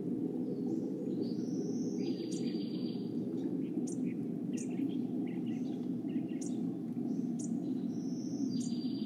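Small birds chirping and trilling over a steady low rumble: short high chirps scattered through, and a buzzy trill about two seconds in that comes again near the end.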